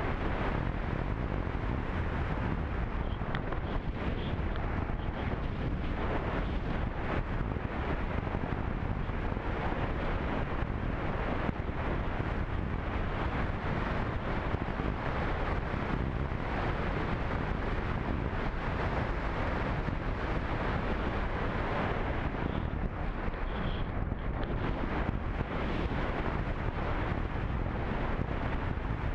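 Steady rush of airflow over the microphone of a camera riding on a radio-controlled slope-soaring glider in flight, with no motor.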